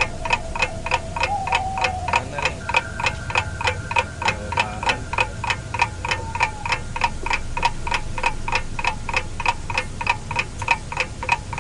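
Clock-like ticking, about four even ticks a second, over a steady held tone and a low hum: a suspense sound effect or music bed.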